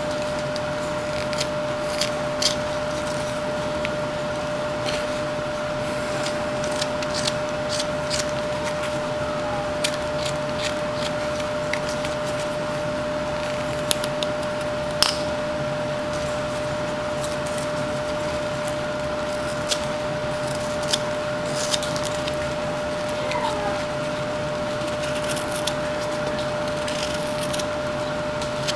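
A knife whittling a wooden carving: scattered short, sharp cuts and scrapes through the wood at irregular intervals, over a steady background hum with a clear held tone.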